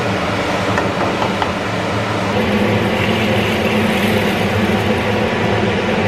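Lentils poured from a mesh strainer into a pot of soup, a hissing patter about halfway through, over a steady loud low hum.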